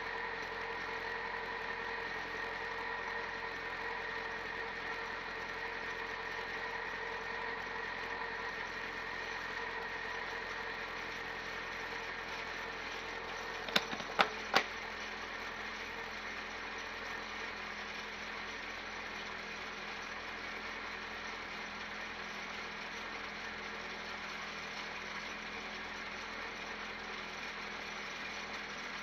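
Peugeot 205 race car's engine idling steadily, heard from inside the stripped cabin. About halfway through come three sharp knocks in quick succession.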